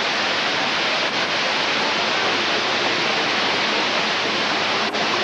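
Steady rushing of falling water from an indoor waterfall, with a faint click or two.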